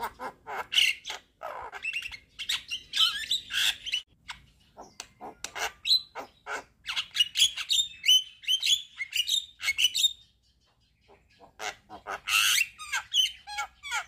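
Javan myna singing a rapid, varied string of harsh squawks, chirps and gliding whistles. It breaks off about ten seconds in for a second or so, then resumes.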